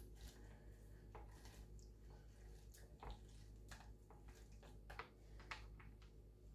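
Faint, irregular squelching and clicking of a blood orange half being pressed and twisted on a plastic hand citrus juicer as its juice is squeezed out.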